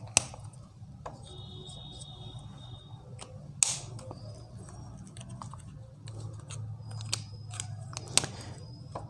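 Plastic whiteboard markers clicking and clattering in the hand, with scattered sharp clicks and a brief squeak of a marker on the whiteboard about a second in, over a steady low hum.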